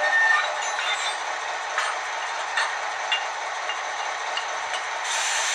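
ÖBB 2050 diesel locomotive engine sound from the small speaker of an H0 model's ESU LokSound 5 decoder, running steadily, with a few light clanks of the decoder's coupling sound. A hiss rises near the end.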